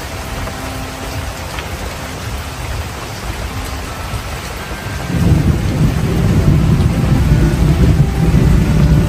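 Rain falling steadily. About five seconds in, a louder low rumble sets in and keeps going.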